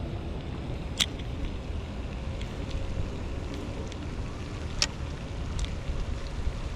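Wind rumbling on the microphone, with a few short sharp clicks: two louder ones about a second in and about five seconds in, and fainter ones between.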